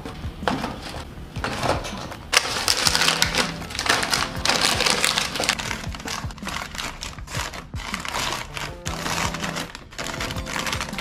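Cardboard cookie boxes and crinkly plastic snack packets being packed into a plastic basket: rustling crackles and light taps, heaviest in the first half, over background music.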